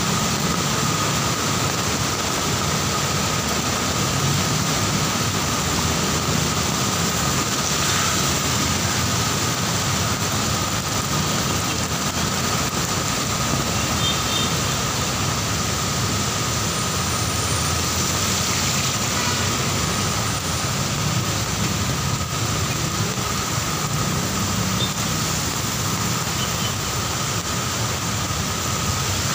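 Heavy rain falling on a wet city street, mixed with the steady noise of slow-moving traffic: car engines and tyres on wet tarmac.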